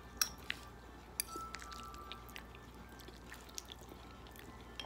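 Faint, scattered clicks and light clinks of eating: utensils on dishware, a few separate ticks over a few seconds.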